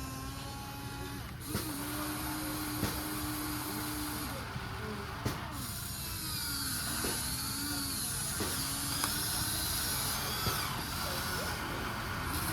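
Electric motors of a Huina radio-controlled excavator whining as it works, starting and stopping with shifts in pitch, with a few sharp clicks in between.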